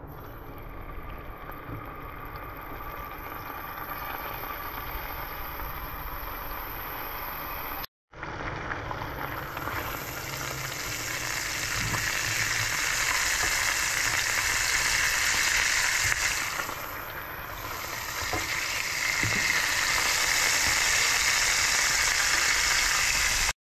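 Scorpion fish fillets sizzling as they fry in hot oil in a pan. The sizzle cuts out for a moment about eight seconds in, then comes back louder.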